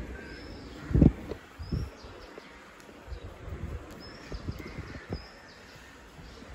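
Scattered low thuds and knocks as a golden retriever noses and chews at a torn plush toy on a tiled floor, the loudest thud about a second in. A small bird chirps faintly throughout, a short high call repeated every second or so.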